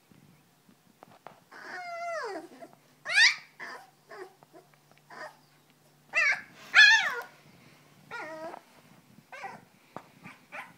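Three-week-old Belgian Malinois–Groenendael cross puppy whining and crying: a string of high-pitched cries, several falling in pitch, the loudest about three and seven seconds in, with shorter squeaks near the end.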